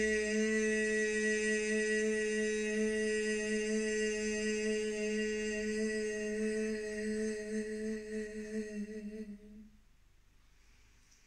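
Meditative background music: one low drone note held steady with many overtones, wavering as it fades out about nine to ten seconds in.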